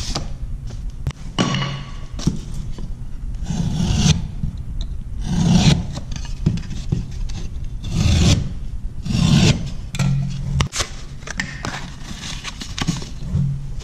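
A paper-faced drywall patch rubbed and scraped against the wall as it is test-fitted over the hole: a string of dry rasping swishes, one every second or two, mixed with paper crinkling.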